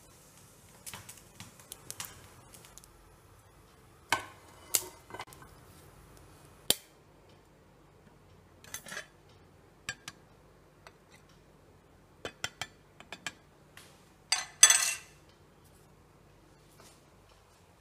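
Metal tuna tin being handled: a dozen or so sharp clicks and clinks scattered irregularly, with a longer, louder burst about fifteen seconds in.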